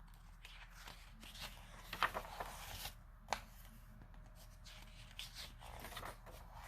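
Faint paper rustling and light handling clicks from a picture book's pages being turned and smoothed, the loudest rustles about two and three seconds in.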